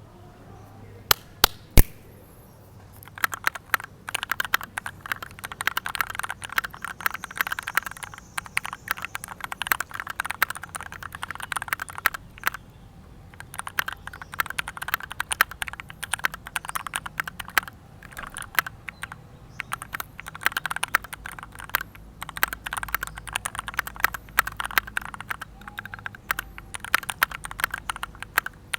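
Typing on a Keychron Q1 v2 mechanical keyboard with a steel plate and lubed, filmed Gateron Black Ink v2 linear switches: quick runs of keystrokes with short pauses between them. Three sharp, separate clicks come shortly before the typing starts.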